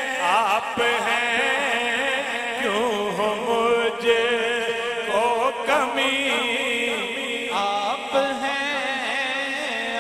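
A man singing a naat through a microphone, drawing the melody out in long, ornamented held notes that waver and glide in pitch.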